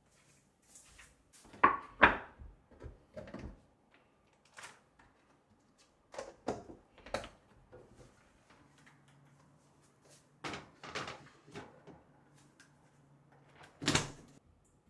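Kitchen handling sounds: a series of separate knocks and clatters as dishes and utensils are picked up and set down, the loudest about two seconds in and near the end. A faint low hum joins in the second half.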